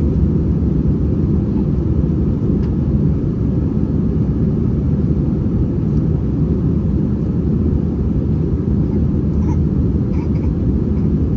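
Steady low rumble inside the passenger cabin of an Airbus A321-231 airliner, the noise of its IAE V2500 jet engines and airflow.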